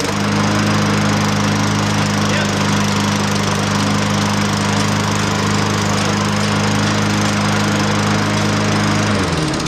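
Toro push mower's engine running at a steady speed, starting abruptly at the outset, then winding down in pitch near the end as it shuts off.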